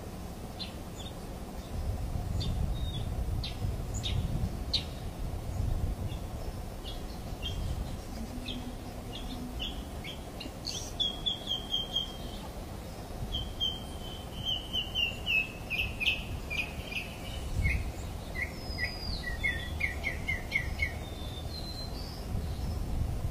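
Wild birds chirping and calling, with several quick runs of short repeated notes, over a steady low rumble.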